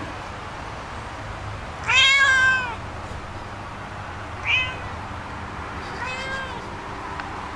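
Domestic cat meowing three times: a loud drawn-out meow about two seconds in, a short one a couple of seconds later, and a softer drawn-out one near the end.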